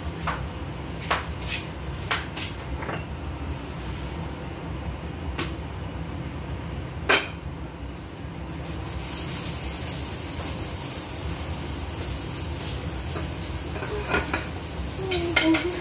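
Clinks and knocks of cookware and utensils being handled at a stove, a handful of sharp strikes with the loudest about seven seconds in, over a steady low rumble; a hiss comes up from about nine seconds in.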